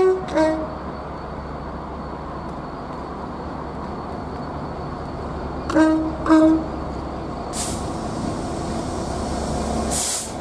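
A locomotive horn sounds short blasts at the start and two more about six seconds in, over the steady low rumble of a train. Two sharp hisses of air follow, one about halfway between and one near the end.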